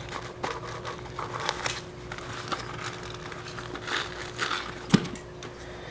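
Handling noise from a fabric camcorder carry bag being rummaged through: rustling with scattered small clicks, and a sharper knock about five seconds in.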